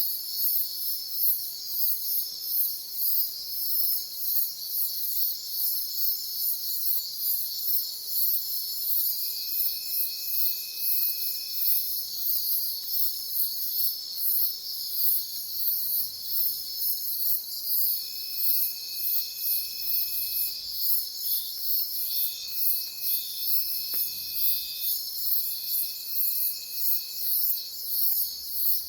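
Night chorus of crickets and other insects: a high chirping that pulses about twice a second over a steady high trill. From about nine seconds in, a lower trill joins four times, each lasting two to three seconds.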